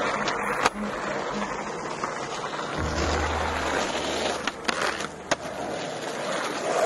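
Skateboard wheels rolling over rough asphalt, with sharp wooden clacks of the board popping and landing: one about half a second in and two more in the middle.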